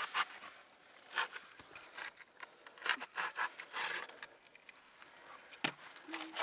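Irregular scraping and rubbing of shoes and clothing on bare rock as someone scoots and climbs down a rock slope, with one sharp click near the end.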